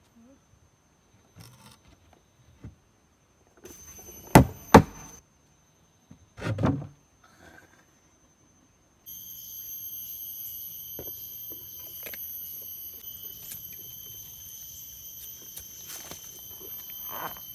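Lumps of charcoal knocked and dropped into a steel grill tray: two sharp clacks about four seconds in, then a duller thud. From about halfway a steady high-pitched drone runs on, with light clicks and rustles.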